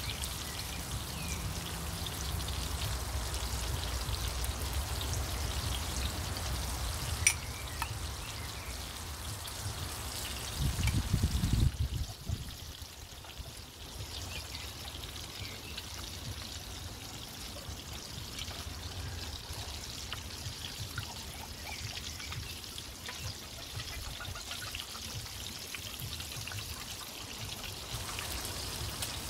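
Pork steaks sizzling and crackling in a cast iron skillet. A low rumble underneath swells and stops about twelve seconds in, and there is one sharp click about seven seconds in.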